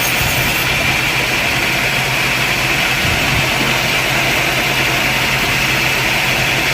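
Sawmill machinery running steadily: a constant engine-like hum under an even hiss, with no change in pitch or level.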